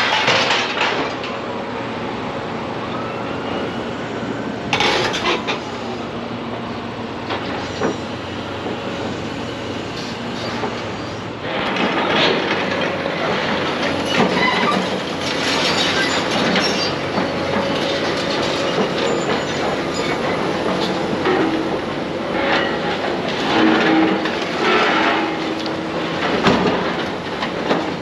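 Heavy demolition machinery at work: a steady mechanical din with screeching and sharp knocks and crashes, busier from about halfway through.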